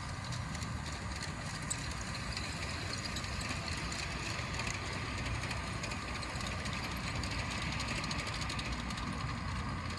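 G-scale model train running along brass garden-railroad track: a steady electric-motor hum with a light, rapid clicking from the wheels on the rails.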